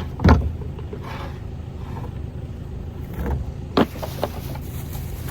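A steady engine hum running throughout, with two sharp knocks: a loud one just after the start and another a little before four seconds in.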